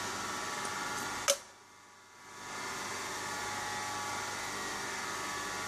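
Steady fan-like mechanical hum in a small room. One sharp click comes just over a second in, and the sound then drops out briefly before the hum returns.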